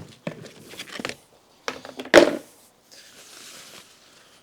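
A plastic storage tote with a snap-on lid being opened: several sharp plastic clacks and knocks, the loudest about two seconds in, then a soft rustle of the contents being moved.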